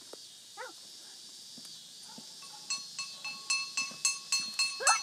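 A metal bell struck over and over, about four strikes a second, each stroke ringing on, starting a little past halfway. Brief vocal sounds come in near the end.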